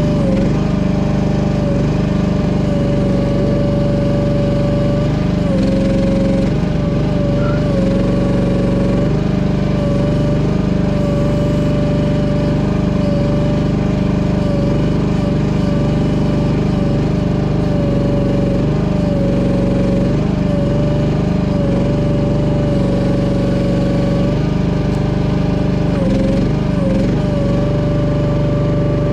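Cheap Chinese mini excavator running while being operated: a steady engine hum with a high held whine that dips in pitch briefly, over and over.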